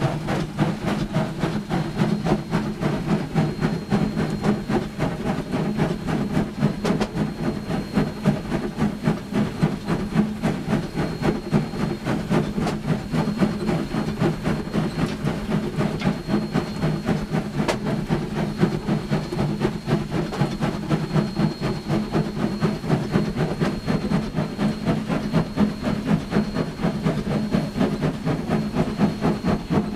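Sierra Railway No. 3, a ten-wheeler (4-6-0) steam locomotive, working up a grade with a steady rhythmic exhaust beat from the stack, heard from inside the cab. A steady hiss of steam runs under it.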